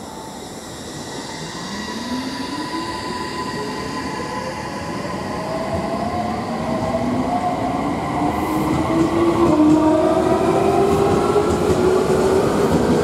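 Odakyu 8000-series electric train pulling away from a station, its Mitsubishi IGBT-VVVF inverter and traction motors whining in several tones that climb steadily in pitch as it accelerates, over the rumble of the wheels. It grows louder as the train gathers speed.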